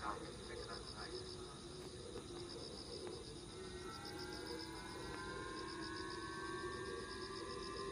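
Japanese civil-protection (kokumin hogo) warning siren, sounded as a missile-launch alert, sets in about halfway through as several tones slowly rising in pitch. Insects chirr steadily underneath.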